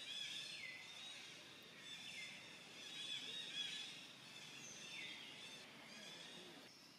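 Faint bird calls: a call that slides down in pitch comes back three times, over steady high chirping.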